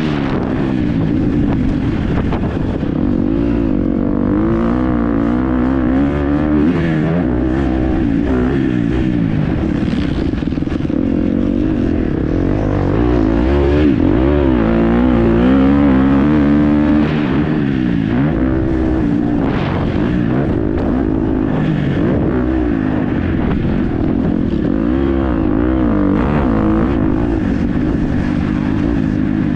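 KTM 250 SX-F four-stroke single-cylinder motocross engine being ridden hard, its pitch climbing and falling again and again as the rider opens and closes the throttle and shifts.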